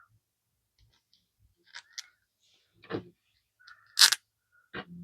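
Small metal telegraph-key parts (screws, washers and contact strips) clicking and tapping as they are handled and fitted back together, a handful of sharp light clicks with the loudest about four seconds in.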